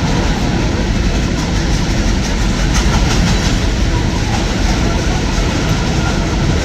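Train rolling past, with a steady, loud clatter of wheels on the rails.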